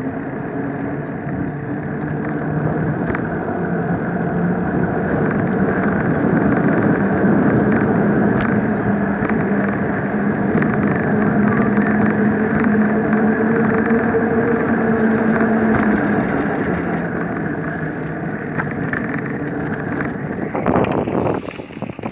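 Steady wind and rolling noise on the microphone of a moving bicycle, with a low hum that swells through the middle and fades again near the end.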